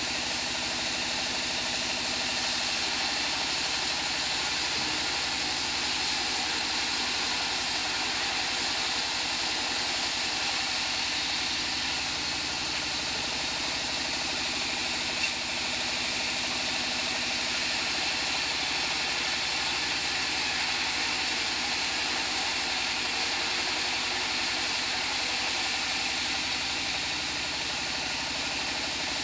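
Sawmill band saw running steadily, its engine-driven drive turning at an even speed with no cut under way. One short knock about halfway through.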